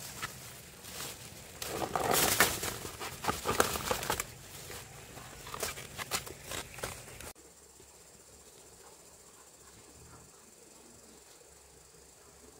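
Plastic bag rustling and crackling with scattered clicks as goods are poured into it. It cuts off sharply about seven seconds in, leaving quiet ambience with a faint steady high tone.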